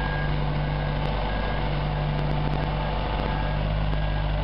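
Marine Travelift boat hoist's engine running steadily while it carries a boat in its slings, with a low droning hum that drops out for about a second near the start, and a faint high beep repeating over it.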